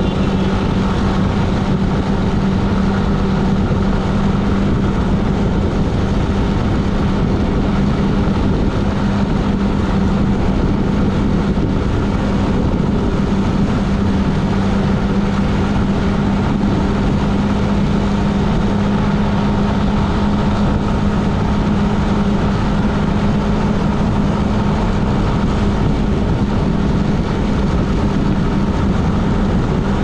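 Steady road noise of a moving vehicle: an even rumble and hiss with a constant low hum, holding one level with no sudden sounds or changes.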